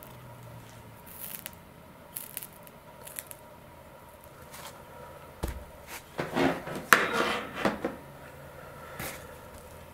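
A soldering iron and a small alligator-clip holder being handled and set down: a sharp thump about halfway through, then a second or two of light clatter and rustle, with a few faint short hisses earlier on.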